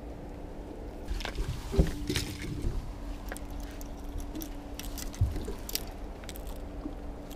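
A fishing rod being cast, with a rushing swish about a second in and a sharp knock just after, then the reel being worked with scattered light clicks and a dull thud a little past five seconds, over a faint steady hum.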